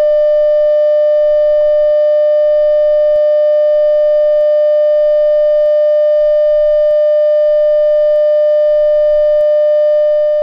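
Loud, steady single-pitch electronic tone from a mock Emergency Alert System broadcast, held without a break and just beginning to fade near the end.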